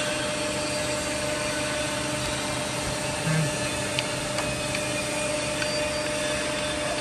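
Jones & Shipman 1078 cylindrical grinder running, a steady whir from its motors with a few constant hum tones, and one faint click about four seconds in.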